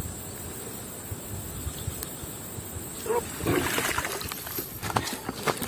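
Insects buzzing steadily in a high band, then water splashing and sloshing irregularly from about three seconds in.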